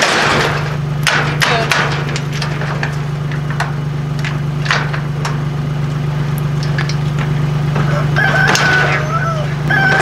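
An engine idling with a steady hum, over which metal clanks and clicks come from a ball-hitch trailer being coupled. Near the end a rooster crows once.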